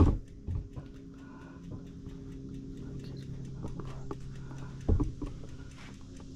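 Two heavy thumps, one at the start and one about five seconds in, with scattered light taps and knocks over a steady low hum.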